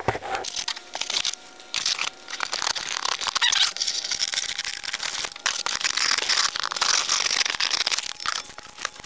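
Cardboard shipping box being opened by hand: irregular crinkling and tearing of packaging, with scrapes and light knocks of handling.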